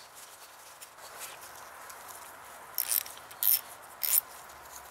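Hand ratchet being worked: three short bursts of fine clicking about half a second apart as the freshly greased mechanism is tested, after faint rag rustling.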